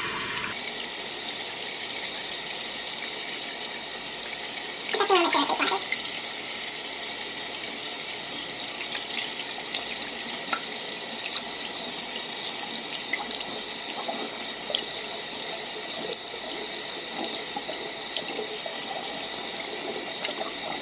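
Bathroom sink tap running steadily while a face is washed under it, with small irregular splashes. About five seconds in there is a brief, louder sound sliding down in pitch.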